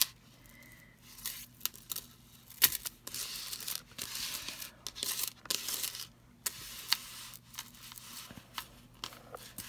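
Strands of a multi-strand seed bead lariat necklace rustling and clicking as hands spread them across a tabletop, with a sharper click about two and a half seconds in.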